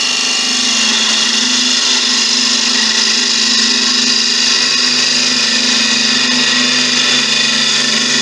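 A turning tool cutting a spalted beech vase blank spinning on a Laguna wood lathe: a steady shearing hiss over the lathe's even, high whine.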